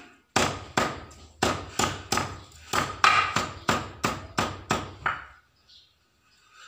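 Stone pestle pounding in a stone mortar of spice paste: about a dozen sharp knocks, two to three a second, stopping about five seconds in.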